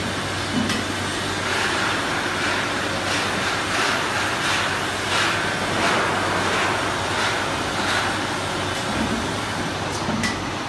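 Sheet-metal cut-to-length and coil straightening line running: a steady machine hum and rumble with a sharp click repeating about every three-quarters of a second.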